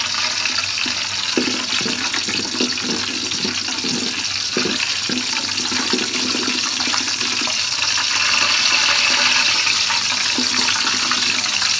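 Whole spices (cardamom, cinnamon and bay leaves) sizzling in hot oil in a metal pot, a steady hiss that grows a little louder near the end. A wooden spatula knocks and scrapes against the pot several times in the first half.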